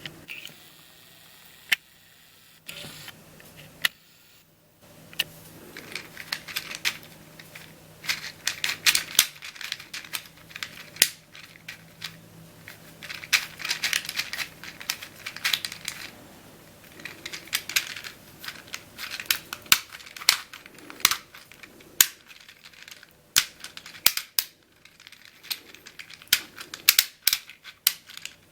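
Leesho tile-sliding puzzle having its rows of tiles turned around the body by hand, the tiles clicking into place: a long, irregular run of sharp clicks and small rattles.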